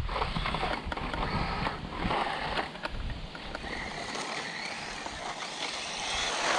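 DEERC 9300 1:18-scale electric RC truck running: a small motor whining over a steady rattle of tyres and chassis on the ground, with scattered clicks and knocks.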